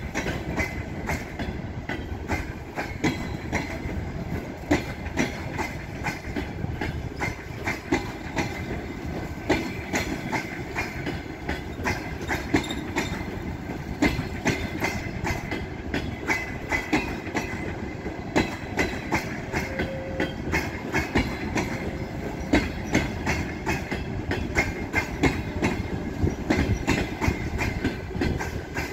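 Passenger coaches of a departing train rolling past along the platform: a steady rumble of wheels on rail with frequent short clicks as the wheels cross rail joints.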